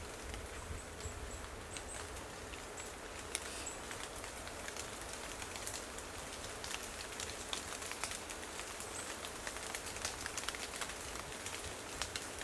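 Light rain pattering: many scattered drop ticks over a steady hiss, with a low rumble of wind on the microphone. A few faint, short high peeps in the first couple of seconds.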